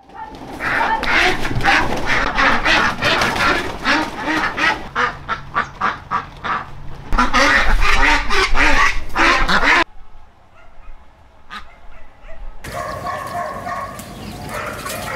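A flock of ducks quacking densely and loudly, many calls overlapping. About ten seconds in the sound cuts off abruptly, and fainter calls follow a few seconds later.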